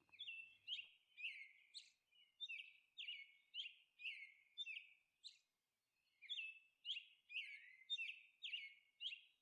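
Faint, high bird chirps repeated about twice a second, with a short pause about halfway through, as a background sound effect.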